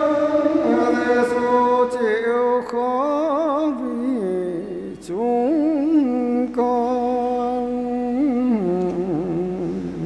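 A solo voice chanting a traditional Vietnamese Catholic Lenten meditation (ngắm), drawing out syllables into long held notes with wavering ornaments, the melody stepping down in pitch twice.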